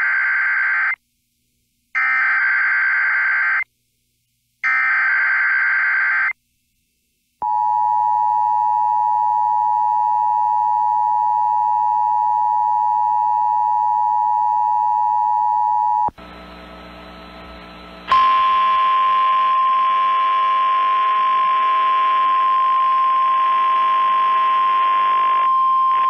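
Emergency Alert System signal from NOAA Weather Radio for a severe thunderstorm watch. It begins with three short buzzing bursts of SAME digital header data. Then comes the steady two-tone attention signal for about nine seconds, a brief stretch of faint hiss, and a single steady alert tone over radio static for about nine more seconds.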